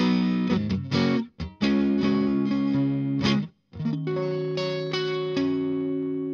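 Electric guitar playing chords through an MXR Fet Driver overdrive pedal, switched on and giving a mild overdriven tone. The chords ring and are cut off short twice, about a second in and about three and a half seconds in, and the last chord is held to the end.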